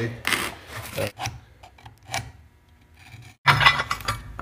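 Scratch awl scraping over steel as it traces around the edge of a wooden template, scribing the line of material to be cut from a steel bracket. It starts with a few short scratches, then a louder, longer run of scratching near the end.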